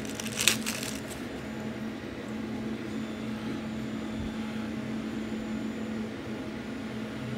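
Room tone with a steady low machine hum. A short rustle about half a second in, as the pin comes out of its small plastic bag.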